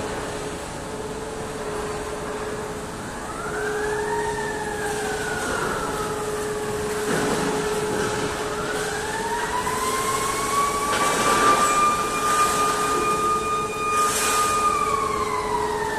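Electric drive motors of a steel rebar rolling mill whining over a steady hum, with a short rise and fall in pitch about four seconds in. A longer whine then rises, holds high and falls again near the end as the motors speed up and slow down. Several short rushes of noise come through on the line.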